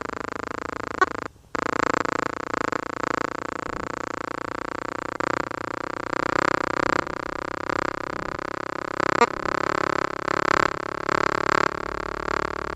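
Steady electronic-sounding drone of many stacked tones, a spacecraft recording of a planet turned into sound, its pitch creeping slowly upward. It drops out briefly about a second and a half in, and a click sounds a little after nine seconds.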